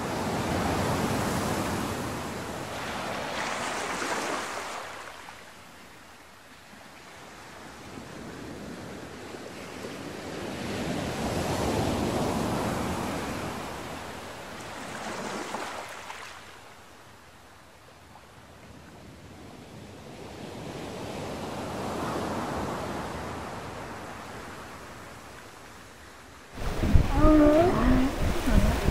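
Ocean waves washing in, swelling and ebbing several times. Near the end it cuts suddenly to louder wind and water noise with short pitched sounds.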